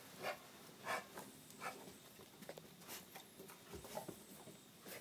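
A dog's soft, breathy cough: a run of short rasping huffs, three in quick succession, a pause, then a few more. It is the recurring cough that the owner suspects may be kennel cough.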